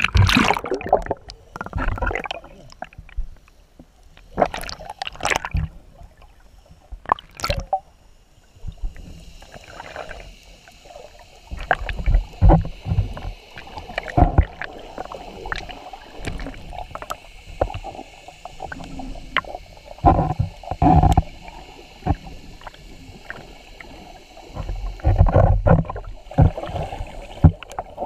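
Camera moving through the water with a snorkeler: splashing at the surface for the first several seconds, then submerged, with muffled gurgling, sloshing and irregular dull thuds of water against the camera. A faint steady high hum runs under the underwater part.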